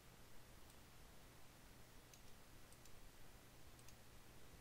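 Near silence with a few faint computer mouse clicks, some of them doubled, spread over a faint low steady hum.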